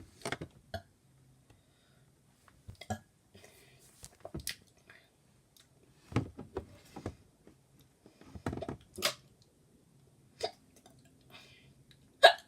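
A person hiccuping again and again, short sharp hiccups every one to two seconds with quiet between them, the loudest near the end.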